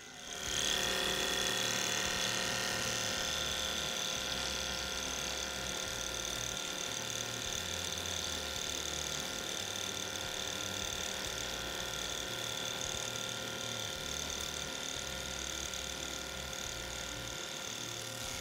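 Industrial overlock sewing machine (serger) starting about half a second in and running steadily at speed as fabric is fed through, sewing a dense overlock edge: an even mechanical whir with a high whine.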